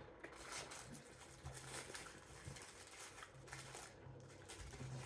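Faint rustling and crinkling of fast-food paper wrappers and bags being handled, with scattered soft clicks.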